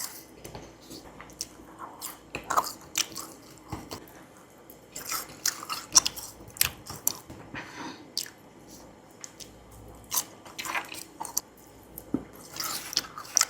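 A person biting and chewing frozen lemon, with irregular wet crunches and mouth clicks, the sharpest about halfway through.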